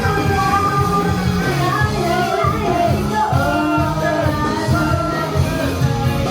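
Female idol group singing live over a loud, up-tempo pop track with a steady beat, heard through a live-house PA.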